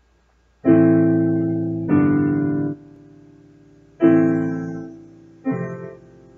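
Digital piano playing four slow chords, each struck and left to ring and fade, starting about half a second in.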